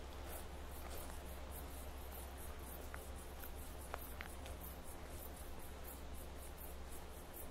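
An insect chirping in short, high, evenly spaced pulses, about three a second, over a low steady rumble, with a few faint clicks around the middle.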